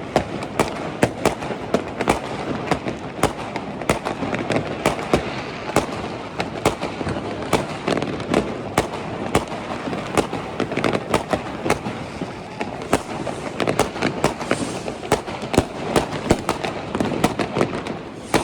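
New Year's Eve fireworks and firecrackers going off densely, sharp bangs several a second over a steady wash of more distant bangs.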